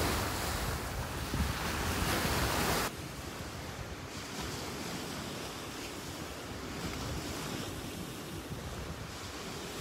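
Small lake waves breaking and washing up a pebble beach, a steady rush of surf. Wind buffets the microphone with a heavy rumble for the first three seconds, then drops off suddenly.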